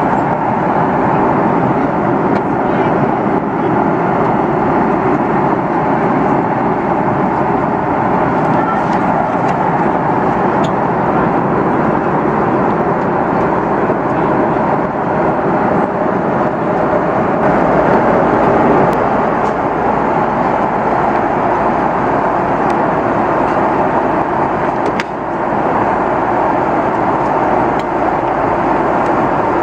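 Steady rush of an Airbus A330-300's engines and airflow heard from inside the passenger cabin, with a brief dip late on.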